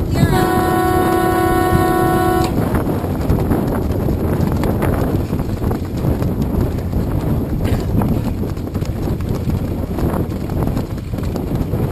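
A horn sounds one steady blast of about two seconds, starting just after the opening. Around it and after it, a loud, even rush of wind on the microphone and water noise.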